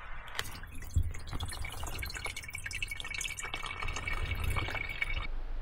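Water dripping and trickling from a hanging gravity-filter bag's hose into a container below, flowing now that the bag is hung high enough. A thin steady ring runs through the middle and stops shortly before the end.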